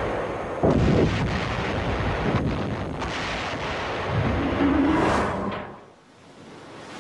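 Heavy explosions around a warship: two sudden loud blasts, one about half a second in and one about four seconds in, with rumbling between them, dying away near the end.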